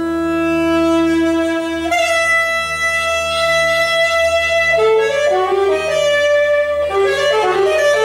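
Saxophone playing: a long held low note, then a higher held note, and from about five seconds in a fast run of rapidly changing notes.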